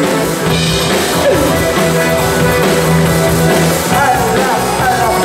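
Live band playing a rock number on accordion, acoustic guitar, bass guitar and drum kit.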